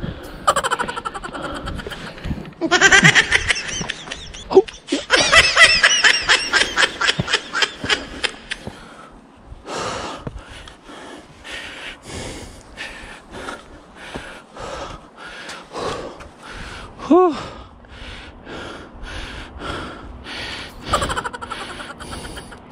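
A man laughing in pulsing bursts, then panting hard in quick, regular breaths, a little under two a second, from the exertion of climbing a steep slope.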